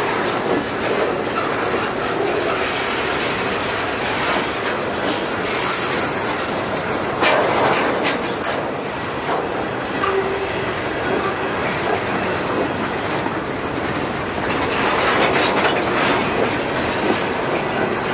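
Norfolk Southern freight train's steel-wheeled hopper cars rolling past close by: a steady rumble with wheels clacking over the rail joints, swelling louder twice, with a short higher tone about halfway through.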